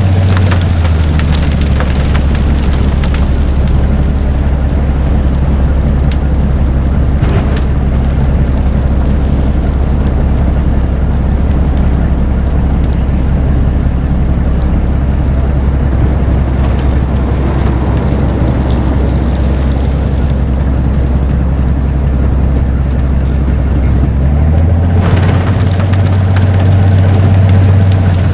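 Railway snow blower's diesel engine running loud and steady under load, with the rush of thrown snow over it. Its low drone drops in pitch about a second in and rises again near the end.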